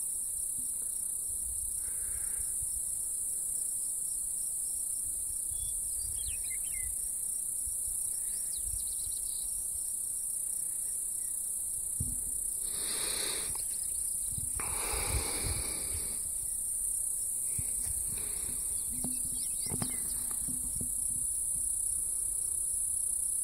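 Steady high-pitched insect chorus, like crickets in summer grass, with a couple of faint, brief swells of rushing noise around the middle.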